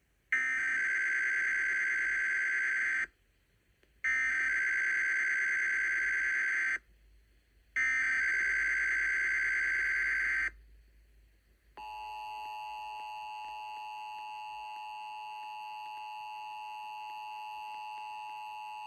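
Emergency Alert System tones opening a Required Monthly Test. Three buzzy SAME header data bursts of about three seconds each, about a second apart, are followed after a pause by the steady two-tone EAS attention signal, which starts about twelve seconds in and holds.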